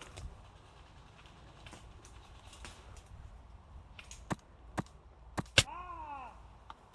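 Faint rustling, then four sharp snaps between about four and six seconds in, the last one the loudest. Right after it comes a short call, rising and then falling in pitch.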